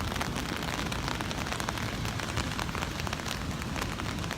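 Steady heavy rain, with many separate drops ticking sharply close to the microphone.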